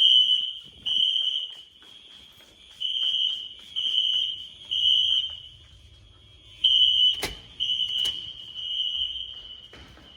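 A building fire alarm sounding a high-pitched beep in groups of three, about a second apart, with a pause between groups: the temporal-three evacuation signal. It was set off, the speaker thinks, by a power flicker during a thunderstorm. Two sharp knocks come through about three-quarters of the way in.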